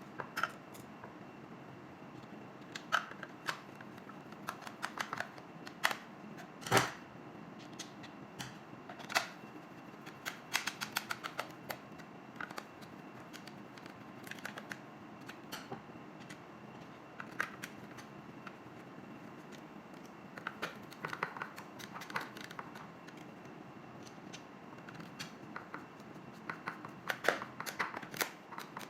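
Irregular light clicks and taps of plastic parts being handled and fitted together as the water timer's casing is put back together, some in quick runs of clicks.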